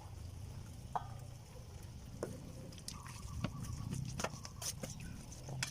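Scattered light clicks and knocks of kitchen utensils and food being handled, irregular and spread throughout, over a steady low hum.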